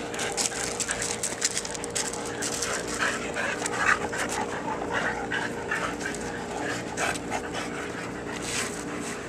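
Two English springer spaniels panting hard while tugging at a frisbee, with scattered clicks and scrapes.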